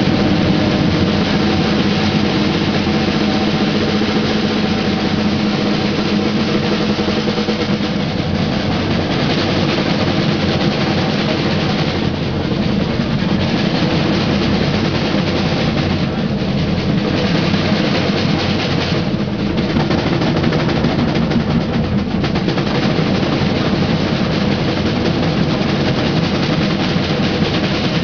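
Samba band drumming: a full batucada ensemble of large metal surdo drums, smaller samba drums and snares playing a dense, continuous groove. The higher drums thin out briefly a few times in the middle.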